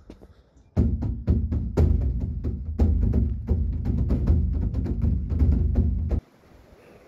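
Music with a strong bass and rapid, sharp percussive strikes. It starts suddenly about a second in and cuts off abruptly about a second before the end.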